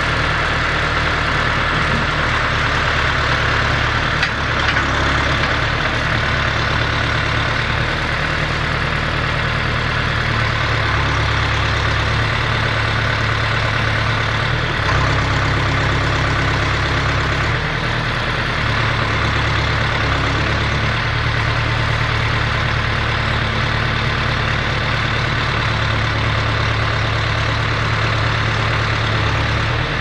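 John Deere 4039D 3.9-litre four-cylinder diesel engine of a 1992 John Deere 310D backhoe, idling steadily.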